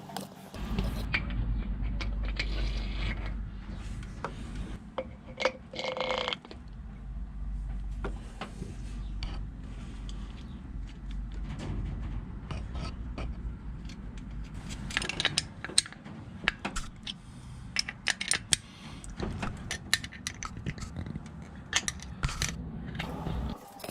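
Hand tools working on metal engine parts: repeated clicks, knocks and scrapes over a steady low hum.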